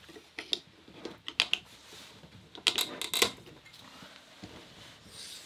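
Clicks and knocks of tools and a heavy battery cable being handled on a wooden tabletop while a cable is fitted to an inverter terminal. There are scattered sharp clicks in the first second and a half, and the loudest cluster comes about three seconds in.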